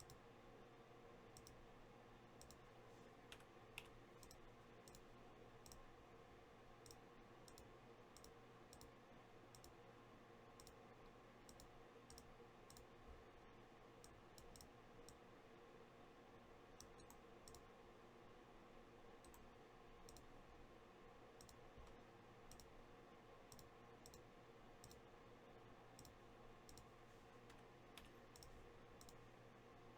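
Near silence: a faint steady hum with soft, irregular clicks about once or twice a second.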